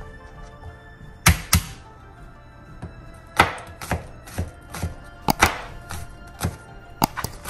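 Chef's knife chopping garlic cloves on a cutting board: irregular sharp knocks of the blade striking the board, coming faster near the end, over soft background music.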